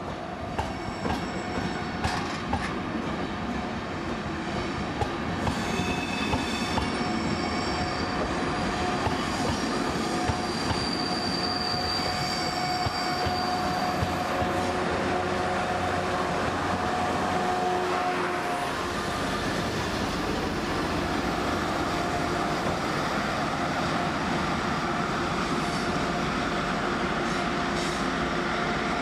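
Enterprise passenger carriages rolling past a platform, their wheels squealing in several high steady tones, with clicks as they cross rail joints. About two-thirds of the way through, the squeal and clicks stop suddenly and a steady rumble takes over as a class 201 diesel locomotive approaches.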